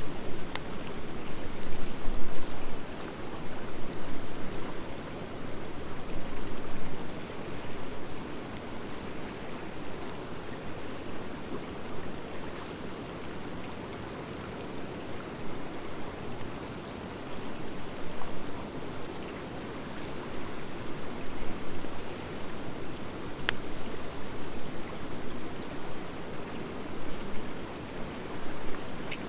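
Wood fire of driftwood and dry hardwood burning with a steady rushing hiss that swells and eases, and scattered crackles. There is one loud sharp pop about two-thirds of the way through.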